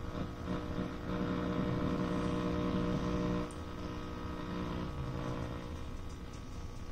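Emerson 7BS 409 tube radio (AM superheterodyne) humming and buzzing through its speaker while being tuned with no antenna connected, picking up no station. The hum with a wash of noise grows louder about a second in and falls back about three and a half seconds in.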